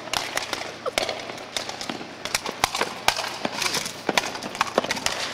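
Footsteps on pavement: a quick, irregular run of sharp taps and scuffs of shoes on asphalt as people run.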